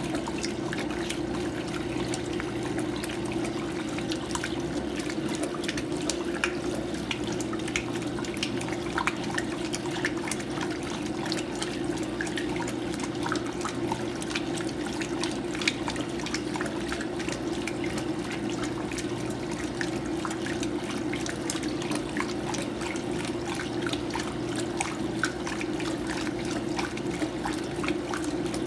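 Electrolux Prosdócimo washing machine in its rinse, water running and splashing in the tub with small drips and splashes throughout, steady with no pauses.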